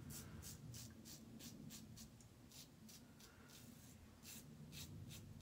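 Faint, quick scraping strokes of a safety razor blade cutting lathered stubble, about three or four strokes a second with a short pause past the middle, on an against-the-grain pass.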